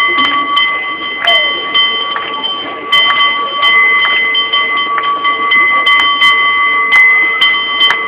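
San Francisco cable car bell rung in a fast, rhythmic pattern of many quick strikes, each ring carrying on under the next.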